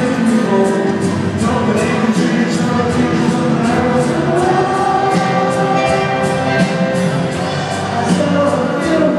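Live band music with singing, heard from far back in a stadium crowd, carried by a steady drum and cymbal beat.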